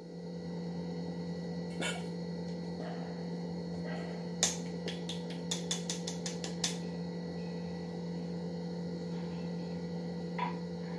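Whole-wheat flour tipped from a mug into a stainless steel bowl, with a few light knocks, then a quick run of about eight taps as the upturned mug is knocked to shake out the last of the flour. A steady electrical hum runs underneath.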